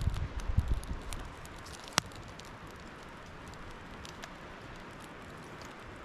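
Small fire of wet wood crackling faintly, with scattered light ticks and one sharp snap about two seconds in, as it struggles to stay lit. A low rumble fades out in the first second.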